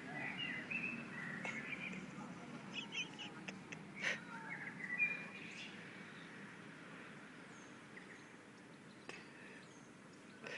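A duckling peeping in quick runs of short, sweeping calls through the first half, thinning out later, with a couple of sharp knocks about four and five seconds in over a low steady hum.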